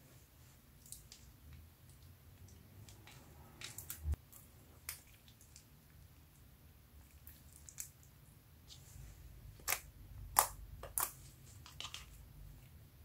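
Hands kneading and squishing sticky slime mixed with glitter and crushed eyeshadow, giving scattered wet pops and clicks. A few louder pops come about four seconds in and again around ten to eleven seconds.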